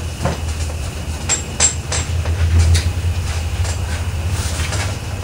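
Rag wiping and rubbing over a primed steel door skin, with scattered short rustles and light knocks as the panel is handled. A steady low hum runs underneath.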